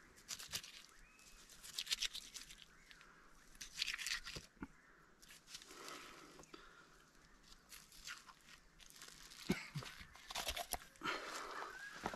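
Knife cutting the back strap off a skinned red deer carcass: faint, irregular crackling and tearing as meat and membrane are sliced and pulled away from the spine.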